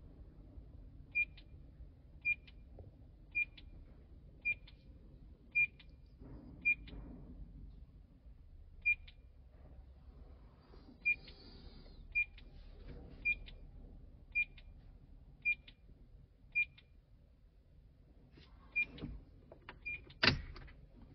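A short, high electronic beep repeating steadily about once a second while the tractor's engine ECU is being reprogrammed. Near the end comes a louder, sharper click.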